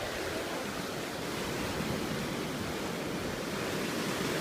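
Sea waves washing in a steady rush of surf.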